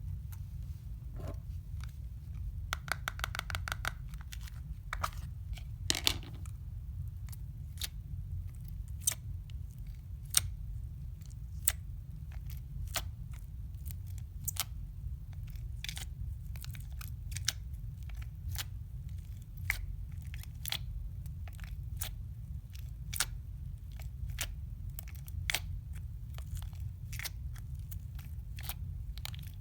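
Slime being pressed and squished by hand, giving sharp, irregular pops and crackles about one or two a second, with a quick run of clicks about three seconds in. A steady low hum runs underneath.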